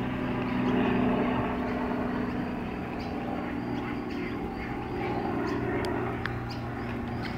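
Steady low engine drone with an even hum, and a few short high chirps over it.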